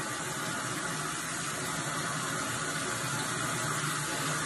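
Bathroom sink faucet running steadily into the basin.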